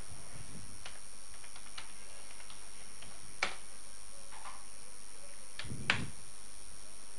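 Computer keyboard keys being pressed: a few light taps, then a sharp keystroke about three and a half seconds in and a louder, heavier one near six seconds, over a steady faint hiss.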